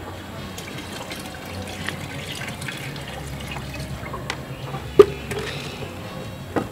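Liquid pouring from a plastic jug into an aluminium pot with a steady splashing. A single sharp clank about five seconds in is the loudest sound.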